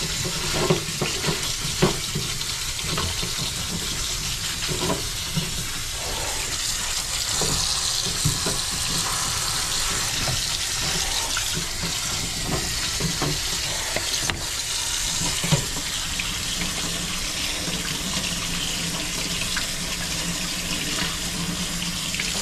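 Kitchen faucet water running steadily onto a plastic colander of crown conch snails in a stainless steel sink, with the shells clicking against each other now and then as gloved hands rub them clean.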